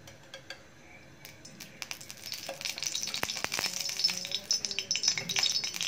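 Cooking oil spooned into a hot kadhai, sizzling and crackling. The sizzle sets in about two seconds in and grows denser and louder, with a few sharp ticks among it.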